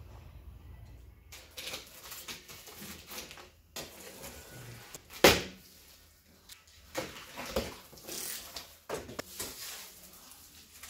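Rustling and knocks from a large cardboard-boxed unit being unpacked, with one loud thump about five seconds in.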